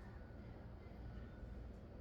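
Quiet room tone with a faint steady low hum and no distinct events.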